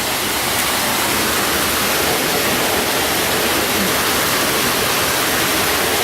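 Running water rushing steadily close by, an even hiss with no breaks.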